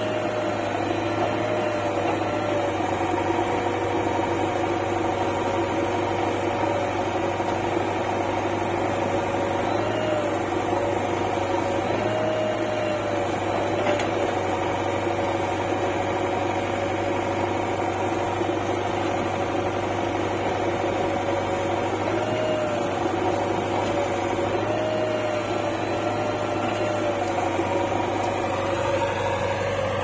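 Diesel engines of a JCB 3DX backhoe loader and a tractor running steadily under working load. A pitched whine rises and dips briefly now and then as the backhoe works its hydraulics.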